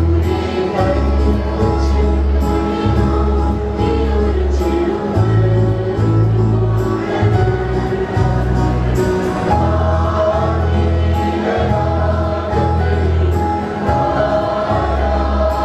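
Mixed choir of young men and women singing together, over sustained low bass notes that change every second or two.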